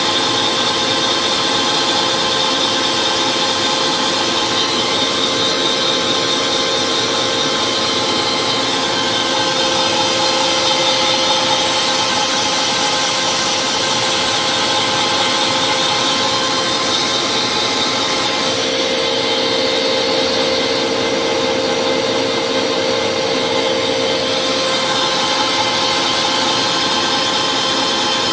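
Moore 450 CP jig grinder running: the high-speed grinding spindle gives a steady whine of several fixed tones over a hiss as its wheel grinds a bore at a very slow feed.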